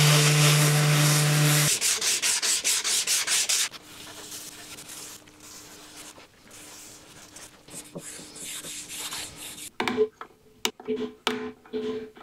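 A power tool running steadily cuts off after about a second and a half. Fast, even rubbing strokes on wood follow, about five a second, then quieter rubbing. Near the end come a run of sharp knocks and clicks.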